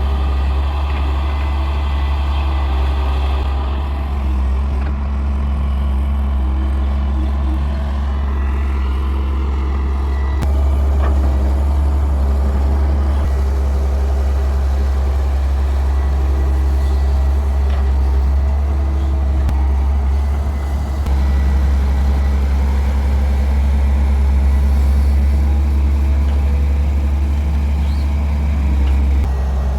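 Heavy diesel engine of earthmoving equipment running steadily with a deep, constant drone, getting louder about ten seconds in and again about twenty seconds in as the load changes.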